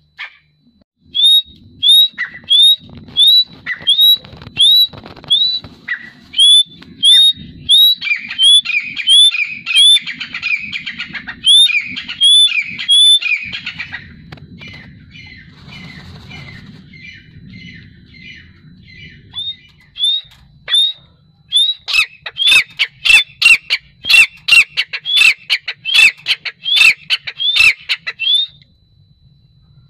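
Grey francolin calling: a long series of loud, high, rising notes, about two a second. The notes pause for several seconds midway, then come again in a second, louder run.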